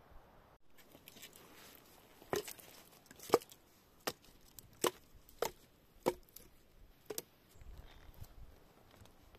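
A small hatchet chopping into wood, seven sharp blows about two-thirds of a second apart.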